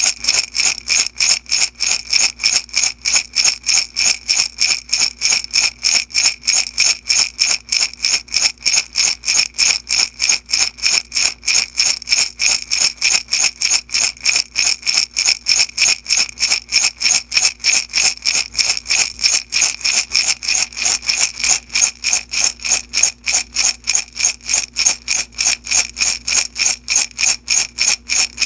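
Beads shaking in a glass jar, a steady rhythmic rattle of about three shakes a second.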